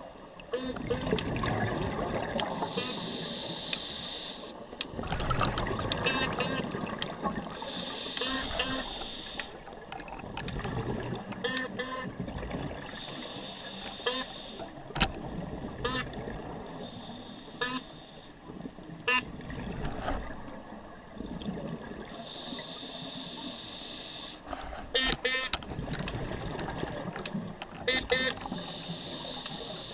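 Scuba diver breathing through a regulator underwater: a hissing inhale every few seconds alternating with low, gurgling bursts of exhaled bubbles, with scattered clicks and crackles between.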